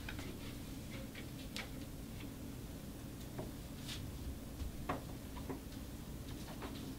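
Faint, scattered small clicks and taps, about half a dozen, over a steady low hum: a gloved hand wiping a light switch and a metal lever door handle with a cloth.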